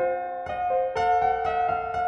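Solo piano music: a slow melody with notes struck about twice a second, each ringing on.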